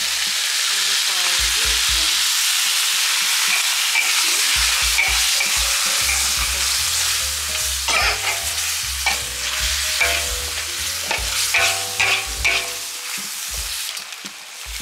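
Curry chicken sizzling in a pan as it is stirred: a steady frying hiss through the first half, then sharp scrapes and knocks of the stirring utensil against the pan from about eight to thirteen seconds in.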